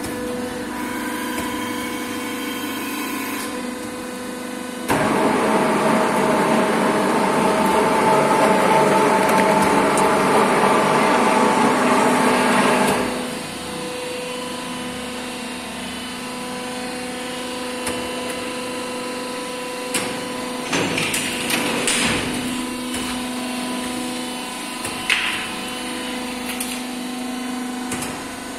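Hydraulic plastic injection moulding machine running with a steady hum, growing much louder and harsher for about eight seconds before settling back to the hum. A few sharp knocks and clatters come in the later part.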